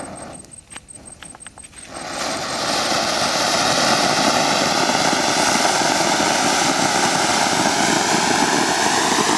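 Ground fountain firework spraying sparks: a few sharp crackles, then about two seconds in it surges into a loud, steady hissing rush that keeps up to the end.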